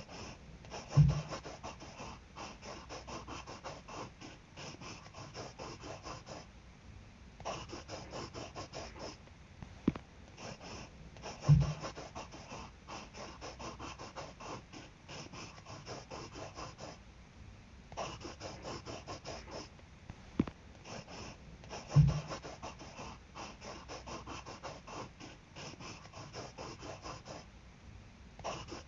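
Pen scratching on paper in quick strokes, the sound of drawing. The scratching pauses briefly now and then, and there is a heavier tap about a second in, again near eleven seconds and again near twenty-two seconds.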